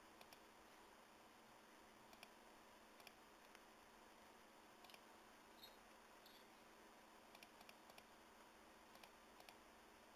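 Faint computer mouse clicks, about a dozen scattered through, many in quick press-and-release pairs, over a low steady hiss. Two brief faint high blips about halfway through.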